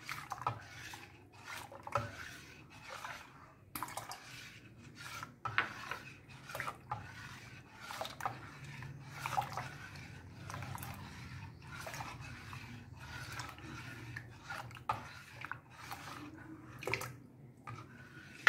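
Steel ladle stirring milk in a steel pan: liquid swishing with irregular scrapes and light clinks of the ladle against the pan, over a low steady hum. The milk is curdling with lemon juice, splitting into chhena and whey.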